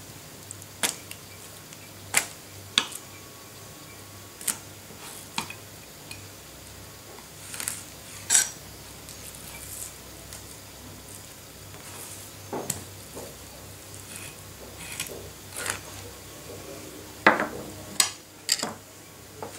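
A knife clicking and tapping against a plastic cutting board and wet fish being handled while a flatfish is filleted: about a dozen scattered short clicks and soft knocks, the loudest ones near the end, over a faint steady hum.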